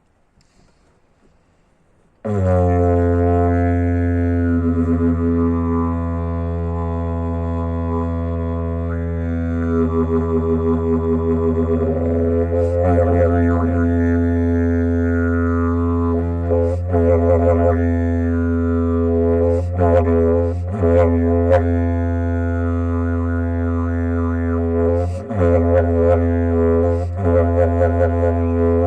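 Didgeridoo played: a steady low drone starts suddenly about two seconds in, its upper tone sweeping up and down, with rhythmic pulsing and short sharp accents further on.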